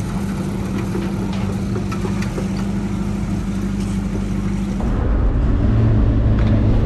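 Steady engine drone of a river car ferry. About five seconds in it cuts abruptly to the deeper, louder running of a Datsun 620 pickup truck on the road.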